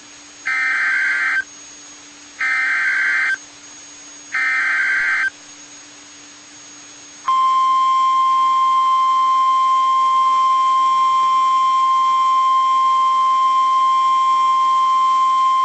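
Emergency Alert System SAME header: three warbling bursts of data tones, each about a second long and a second apart. About seven seconds in, the steady single-pitched NOAA Weather Radio warning alarm tone starts and holds. Together they announce a severe thunderstorm warning.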